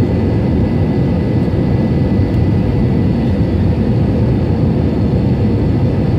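Steady roar of engine and airflow noise inside an Airbus A321's cabin at a window seat over the wing, on final approach to landing, with a faint steady high whine above it.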